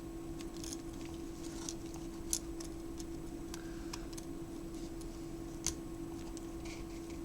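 Scattered small sharp clicks and taps of small plastic camera parts being handled and pressed into place during reassembly, over a steady low hum.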